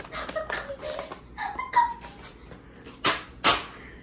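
A quick run of small clicks and handling noise, a few short squeaky sounds, then two loud sharp smacks about half a second apart near the end.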